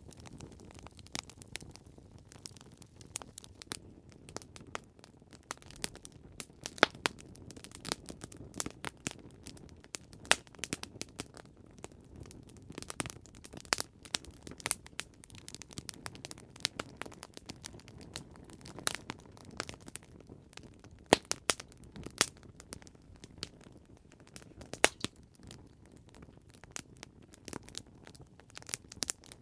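Wood campfire crackling, with irregular sharp pops and snaps over a low, steady hiss of burning.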